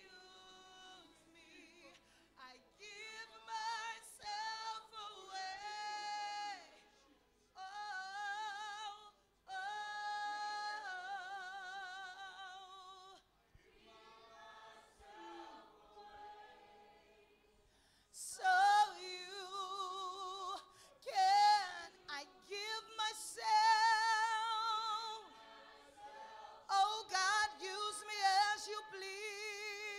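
A woman leading worship singing long, drawn-out lines with a wavering vibrato, joined by a small group of backing singers, with no instruments heard. The singing softens about halfway through, then swells back up.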